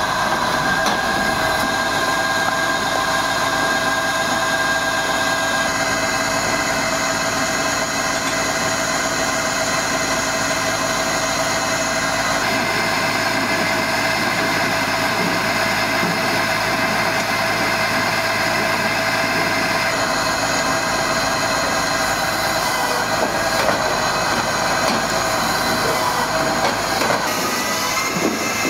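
Hakki Pilke Expert 37 firewood processor running steadily with a constant machine whine. Its tone shifts a few times as it works.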